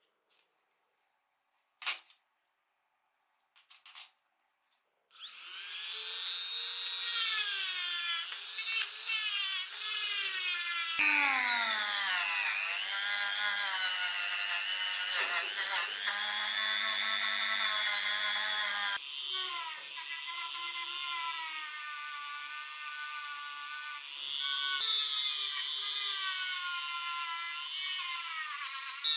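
A few light clicks, then from about five seconds in a small high-speed electric power tool runs with a high whine. Its pitch rises and dips as the load on it changes, shifting abruptly twice.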